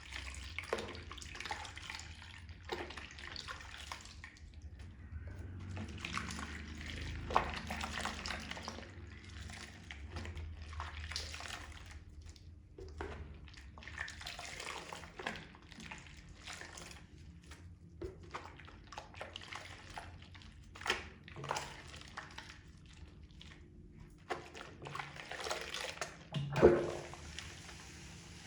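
Makeup sponges being soaked and squeezed in soapy water: irregular wet squishing and splashing, with running water and one louder squelch near the end.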